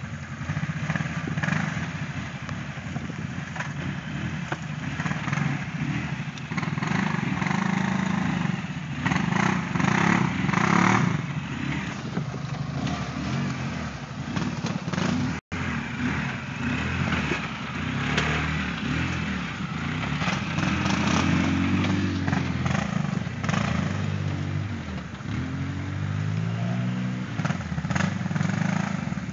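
ATV engines of a Kawasaki Brute Force 750 and a Polaris 800 crawling over rocks, the engine note rising and falling again and again as the riders throttle up and ease off over the ledges. The sound cuts out for an instant about halfway through.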